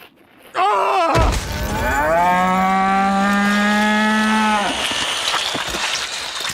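Cartoon cape buffalo giving one long, steady bellowing moo that starts with a heavy thump about a second in and stops shortly after the middle, over a scraping rush of sliding down a dirt slope that carries on to the end. A short wavering cry comes just before the thump.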